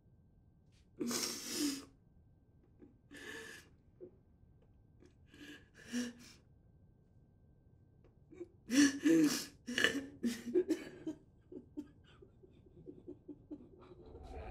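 A woman's breathy, gasping vocal outbursts: short bursts every couple of seconds, then a denser run of them about nine seconds in.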